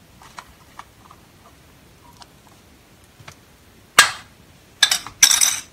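Handling noise close to the microphone as a spice box is put down and a spice packet picked up beside a steel bowl: a few faint clicks, a sharp knock about four seconds in, then two short scraping rustles.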